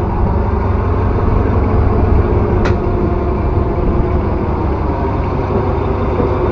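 Steady low mechanical rumble with a constant hum, like engine or traffic noise, and one sharp click about two and a half seconds in.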